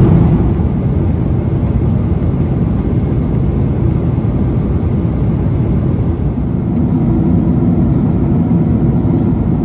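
Cabin noise of an Airbus A350-1000 airliner in cruise at about 10,000 m: a steady, low rumble of airflow and engines.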